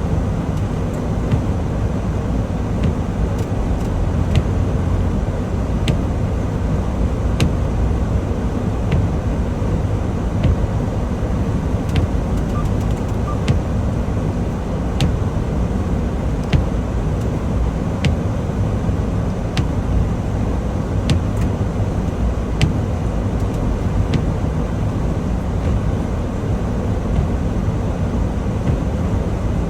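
Steady low engine and road rumble heard from inside a semi-truck cab while driving, with a short sharp click about every one and a half seconds.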